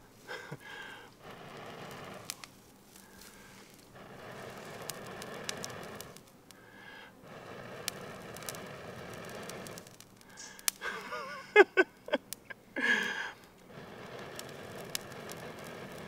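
Long, steady breaths blown again and again into a smoking grass tinder bundle that holds a bow-drill ember, coaxing it towards flame, with short pauses for breath between blows. About two-thirds of the way through come a few loud, sharp clicks and brief squeaks.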